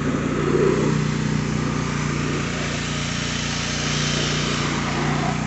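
An engine running steadily at idle, a low, even hum that does not change.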